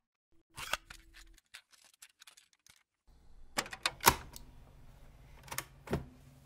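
Light plastic clicks and clatter of a cassette tape case being handled and set down, then several sharper clicks of cassette deck keys being pressed, with a faint low hum joining about three seconds in.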